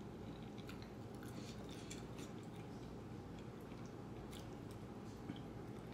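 Quiet chewing of noodles, with scattered faint clicks of a metal fork against a glass bowl.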